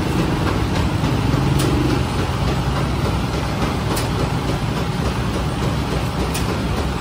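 Automatic bread-baking machine running with a steady, loud mechanical hum and rumble, and a faint tick about every two and a half seconds.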